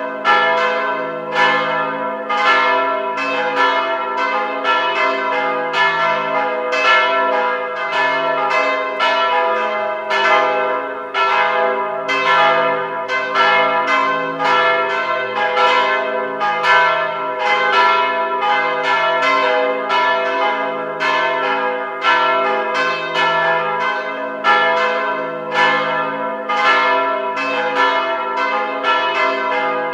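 Church bells pealing: the bells are struck one after another in a continuous run, about two to three strokes a second, each ringing on into the next.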